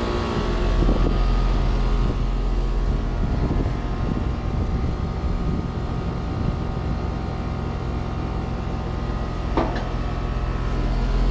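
Trane XR heat pump running steadily in heating mode, the compressor and outdoor fan giving a constant hum.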